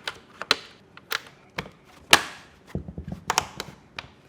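A string of about ten irregular sharp clicks and knocks, with the loudest about two seconds in.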